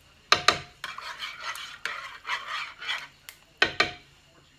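Metal spoon clinking against a pan, with scraping and stirring between the knocks. The sharpest knocks come about a third of a second in and again near the end.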